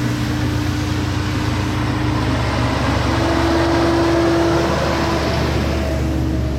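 A vehicle engine running steadily with a droning hum over a rushing noise. The hum rises a little in pitch for a couple of seconds in the middle.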